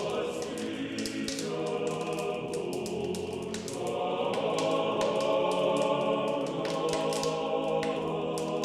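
Closing music: a choir singing slow, sustained chords, with a patter of light clicks over it.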